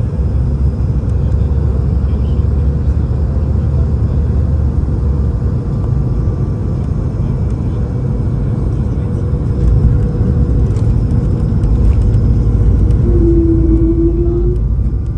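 Steady low rumble of engines and airflow inside an Airbus A220-300's passenger cabin, with a short steady tone sounding for about a second and a half near the end.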